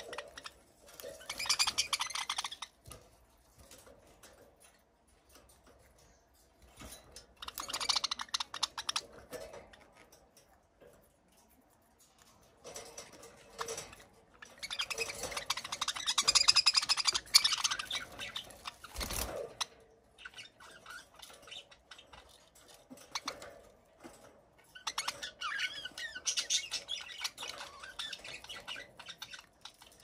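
Budgerigars chattering in bouts of rapid high chirps, with quiet gaps between, and a single knock about two-thirds of the way through.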